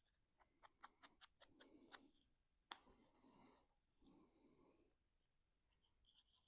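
Near silence, with faint soft clicks and rustles of card stock being handled and a few quiet breaths.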